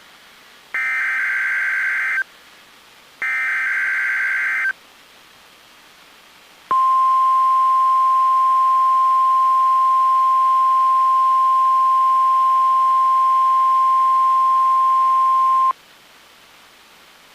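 NOAA Weather Radio Emergency Alert System test signal. First come two buzzing SAME digital header bursts of about a second and a half each, the last of the three-burst header. After a short pause comes the steady 1050 Hz warning alarm tone, held for about nine seconds and then cut off sharply.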